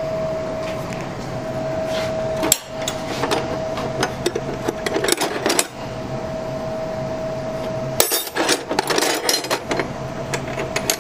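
Steel combination wrenches clinking and rattling against each other as hands rummage through a tool chest drawer, in two spells of clatter, the second about eight seconds in.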